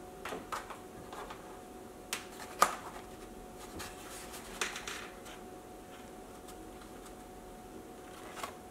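Molded-fibre takeout clamshell boxes being handled on a table: scattered clicks, taps and light rustles as lids are opened and food is set down. The sharpest click comes about two and a half seconds in, with a small cluster of taps near the middle and one more near the end.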